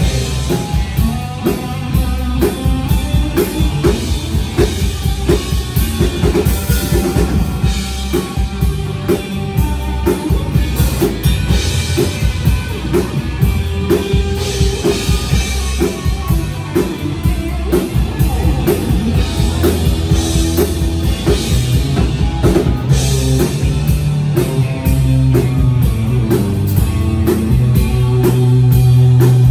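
Live rock band playing: drum kit keeping a steady beat over bass and guitar, with a low held note swelling near the end.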